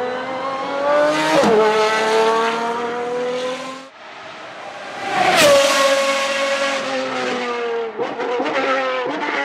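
Pagani Zonda R's 6-litre Mercedes-AMG V12 at high revs, passing close by twice. Each time the engine note drops sharply in pitch as the car goes past, then trails away.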